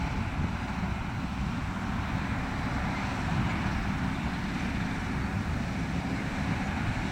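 New Holland CX6080 combine harvester running steadily as it cuts standing grain, a continuous machine drone, with wind buffeting the microphone.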